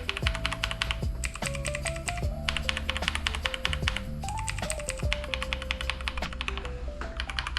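Mechanical keyboard being typed on quickly in bursts of rapid key clicks, with short pauses between runs, over background music.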